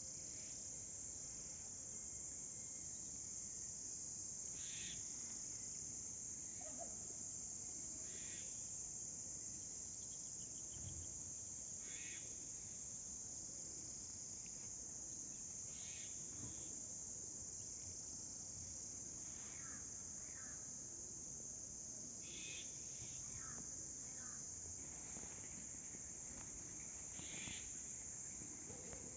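A steady, high-pitched drone of insects, a cricket or cicada chorus, with short bird calls breaking in every few seconds.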